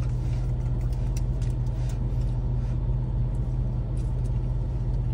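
Steady low hum of a car's engine idling, heard from inside the cabin, with a few faint clicks and rustles from eating.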